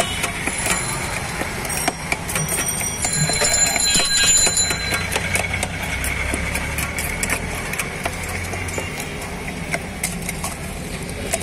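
Steel spoon clinking and scraping against the inside of a steel pot as tamarind pulp is mashed and stirred, a quick irregular run of small metallic ticks. A high ringing sounds for a few seconds about two seconds in.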